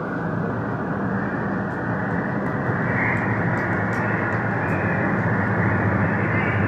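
Motor of a moving passenger launch running steadily under way, with a rush of water and wind, slowly building a little louder.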